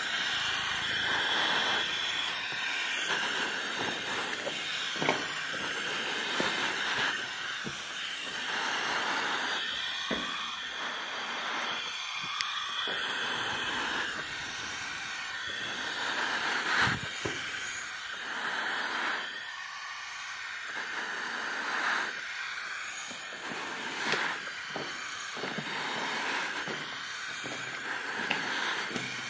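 Footsteps crunching on the gravel floor of an old railway tunnel over a steady hiss, with a few short knocks scattered through.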